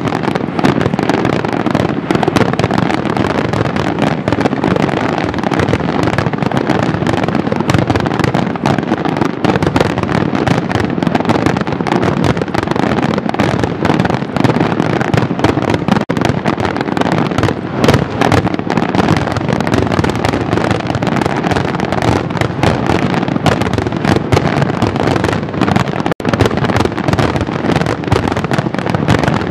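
Fireworks display: a dense, continuous barrage of bangs and crackling with no pause between the bursts.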